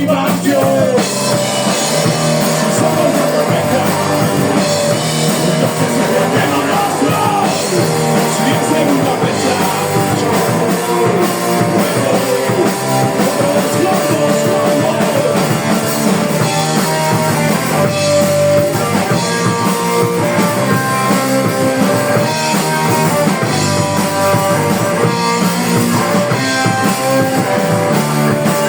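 A rock band playing live, with drum kit and guitars driving the song.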